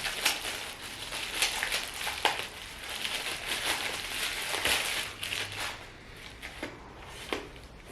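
Packaging wrapping crinkling and crackling as it is handled and pulled open, busiest for the first six seconds, then a few lighter rustles and clicks.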